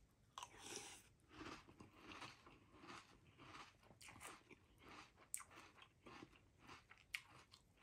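Quiet, regular chewing of a mouthful of crunchy rice cereal in milk, a soft crunch roughly every half second, with a couple of sharper clicks in the second half.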